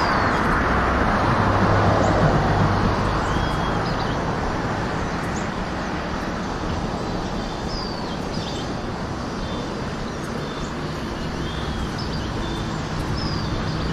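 Road traffic running steadily, louder over the first few seconds as a vehicle goes by and then easing off, with small birds chirping in short repeated calls over it.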